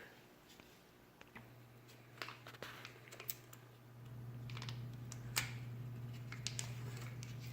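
Scattered light clicks and taps of small objects being handled, over a steady low hum that comes in after about a second and grows louder about four seconds in.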